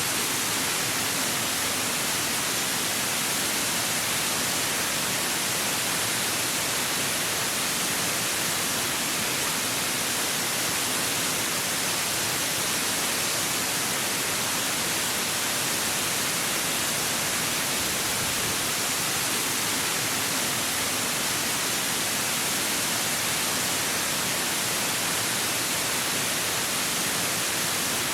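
Mountain waterfall: a steady, unbroken rush of falling water, heavy on the hiss.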